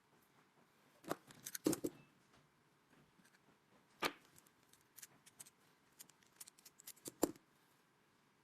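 Irregular sharp clicks and small knocks from handling the key cutting machine's clamp and the plastic key, with no cutter motor running. There is a cluster about a second in, a single loud click about four seconds in, and a run of lighter clicks ending in a loud one near the end.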